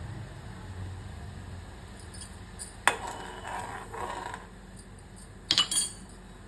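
Kitchen utensils clinking and scraping while the remedy is prepared: one sharp knock about three seconds in, a scraping shuffle after it, and a quick cluster of clinks near the end.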